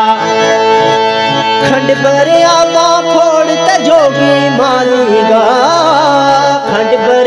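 Instrumental interlude of a Gojri folk song: a melodic instrument plays wavering, ornamented runs over a steady held drone, with light hand-drum percussion.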